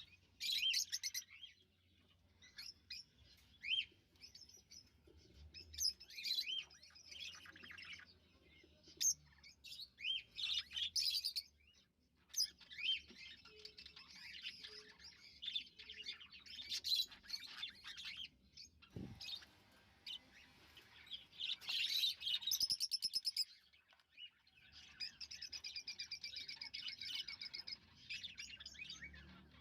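A pair of lovebirds chirping and chattering: many short, high chirps and rapid twitters, with a run of fast buzzy trills near the end. A single brief knock comes a little past the middle.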